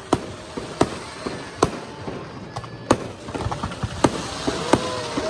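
Fireworks display: aerial shells bursting in sharp bangs about once a second, with denser crackling filling in during the second half.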